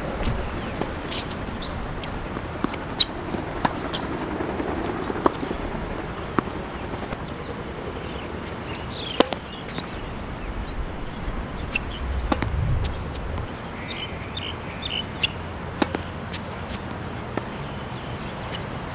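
Tennis ball struck by racquets and bouncing on a hard court during a rally: sharp single pops every one to three seconds over a steady outdoor hiss.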